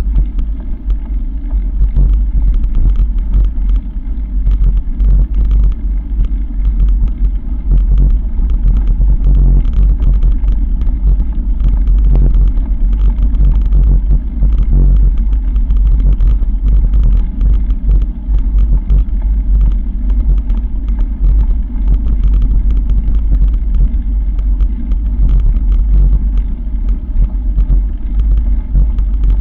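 Tyres crunching over a gravel track, heard from a camera mounted on the moving vehicle: a steady low rumble with constant crackle and rattle, and wind buffeting the microphone.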